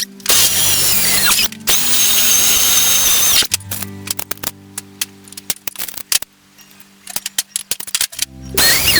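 Power drill running in two bursts of a second or two each, the first dropping in pitch as it ends; after a quieter pause it starts again near the end. Background music with steady low notes plays under it.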